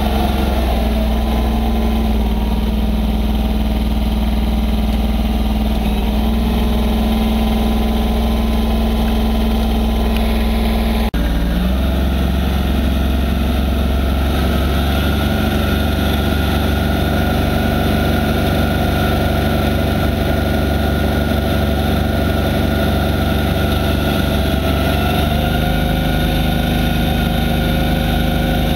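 Massey Ferguson 1020 compact diesel tractor engine running steadily, with a brief break about eleven seconds in, after which its tone shifts slightly as it drives a PTO snowblower throwing snow.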